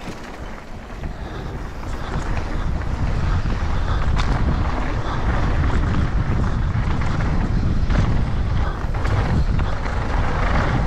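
Mountain bike ridden fast down a rough trail: wind buffeting the GoPro's microphone over a steady low rumble from the tyres, with scattered knocks from the bike.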